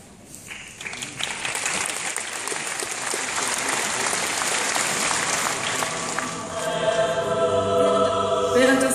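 Audience applauding, the clapping swelling from about a second in. About six and a half seconds in, music with held sung notes starts over the applause.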